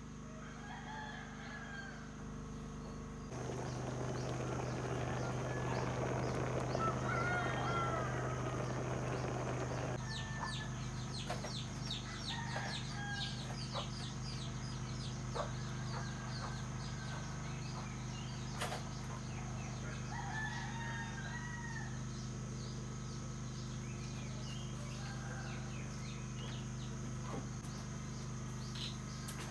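Domestic chickens clucking with a rooster crowing, over a steady low hum and many quick high chirps. The sound is busiest and loudest from about three to ten seconds in.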